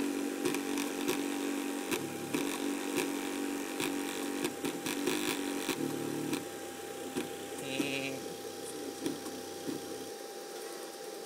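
Homemade paper-plate speaker, a paper plate fixed to a small computer speaker driver and powered by a car stereo head unit, playing music thinly. Sustained low notes come and go every second or so, over a steady whine and with frequent crackling clicks.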